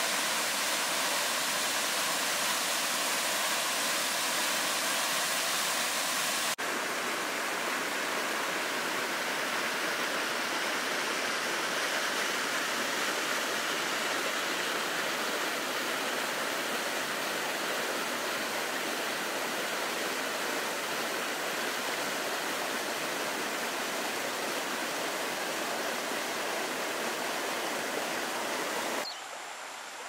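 Waterfall cascading down rock ledges: a steady rush of falling water. The sound shifts abruptly a few seconds in and drops suddenly to a quieter rush near the end.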